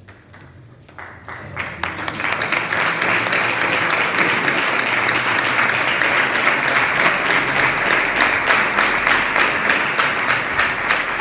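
Audience applauding: a few claps about a second in, swelling within a second into steady applause from many people.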